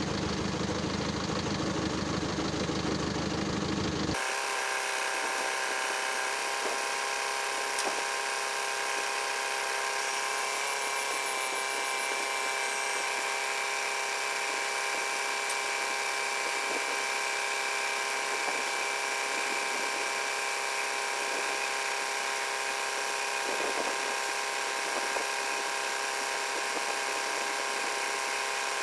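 A steady machine hum made of several held tones, with a deeper rumble under it that stops abruptly about four seconds in.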